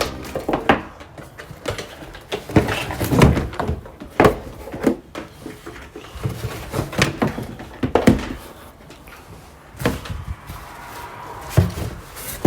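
Irregular knocks and thuds, a dozen or so spread unevenly, as of things being handled and set down in a small room.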